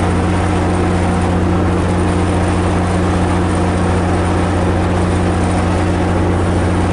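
MARC MP36 diesel locomotive standing still with its engine running, a steady even drone with a strong low hum that does not change.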